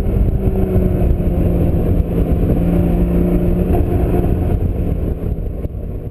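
Porsche Boxster Spyder's flat-six engine running at a steady cruise, its pitch easing slightly lower, over a low rumble of wind and road noise with the top down. The sound fades out near the end.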